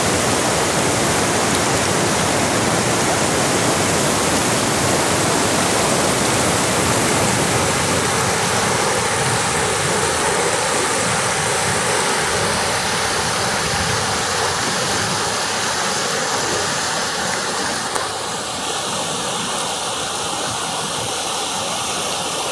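River rapids: white water rushing over and between boulders, a loud, steady rush. About 18 seconds in there is a brief click, and the sound gets slightly quieter.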